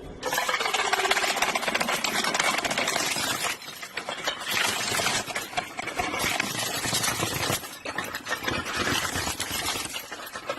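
A machine running with a fast, dense rattle, cut into several short stretches.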